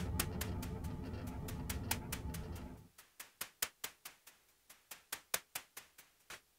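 Electronic noise music from a small synth setup (Bastl Kastle, MicroGranny and PO-32 Tonic) winding down. A low, noisy drone laced with sharp clicks cuts out about three seconds in, leaving only quick dry electronic clicks, about five a second, some louder than others.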